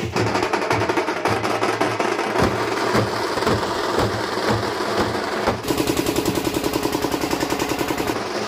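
Procession band drums playing fast, dense rapid-fire strokes. For the last third or so, an even faster, very regular drum roll runs under a held pitched tone.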